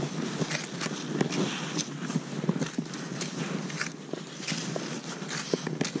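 Footsteps crunching in deep snow, a rapid uneven series of short crunches.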